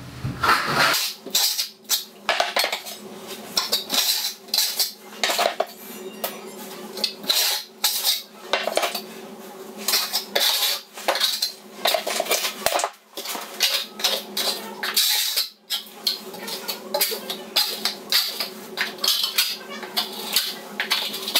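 Trowel scraping and spreading Laticrete Hydro Ban liquid waterproofing membrane over cement backer board, in quick repeated, irregular strokes.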